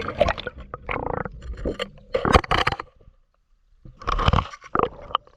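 Irregular scraping and knocking with water noise, the sound of a camera in its waterproof housing being moved under water; it goes almost silent for about a second near the middle, then the scraping picks up again.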